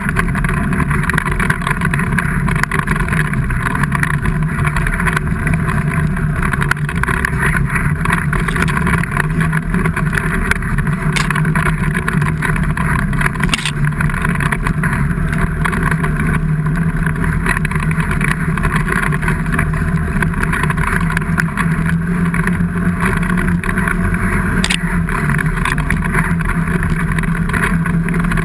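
An engine running steadily at an even pitch, with no revving.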